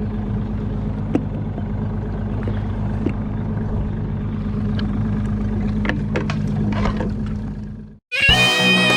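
Boat engine running steadily, a low hum with a few light clicks and knocks on deck. Near the end it fades out suddenly and guitar rock music starts.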